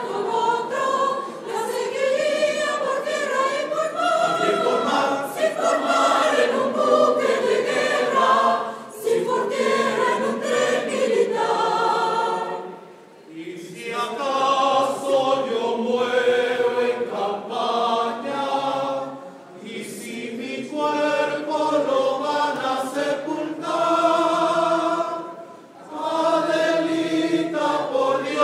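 Choir singing, phrase after phrase, with short breaks between phrases about 13, 20 and 26 seconds in.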